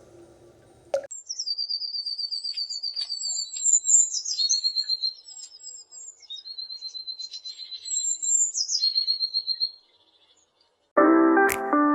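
A songbird singing a string of high, rapid trills, each phrase a fast run of repeated notes, for about nine seconds. After a brief silence, plucked-string music begins near the end.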